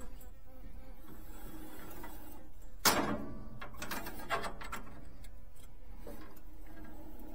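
Band sawmill blade being worked by hand onto its band wheel, with one sharp snap about three seconds in and a few lighter clicks and rattles after it.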